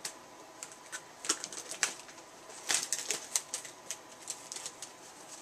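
Clear plastic wrap crinkling and crackling as it is pulled off a cardboard box and bunched up by hand, in irregular bursts that are busiest about a second in and again around three seconds in.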